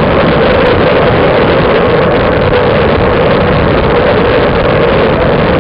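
Loud, steady rush of wind across the microphone of a camera on a road bike riding at speed, mixed with tyre noise on the asphalt.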